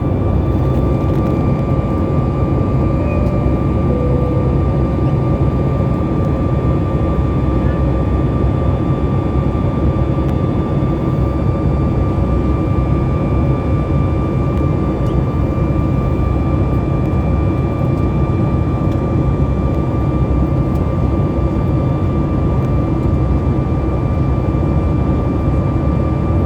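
Jet airliner's engines running steadily at climb power after takeoff: a constant loud rumble with a steady whine on top.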